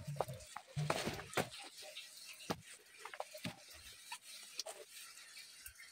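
Faint, irregular dripping of water into a small spring pool, with a few soft low thumps about a second in.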